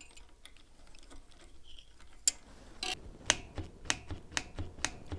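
A run of sharp clicks, about three a second, starting a little past halfway: a cantilever brake lever on a bicycle being squeezed and let snap back repeatedly to test the feel of the freshly adjusted brake.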